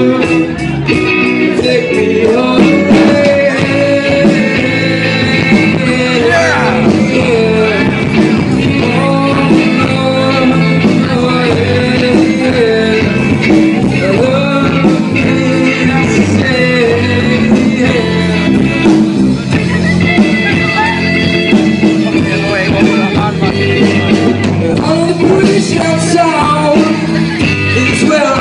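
Rock band playing live, loud and steady, with a sung melody line over the instruments.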